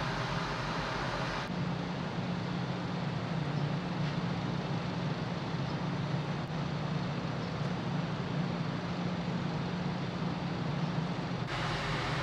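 Steady low drone of the docked ferry Sunflower Murasaki's machinery and ventilation heard on its open deck, with an even hiss over it. The sound changes abruptly about a second and a half in and again near the end.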